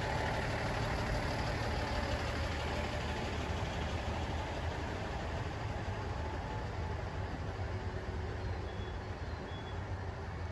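Diesel railcar engine idling at the terminus platform, a steady low rumble, with two faint short high beeps near the end.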